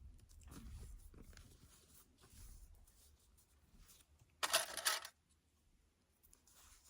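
Faint handling of fabric and plastic sewing clips, with small scattered clicks and a short louder rustling clatter about four and a half seconds in.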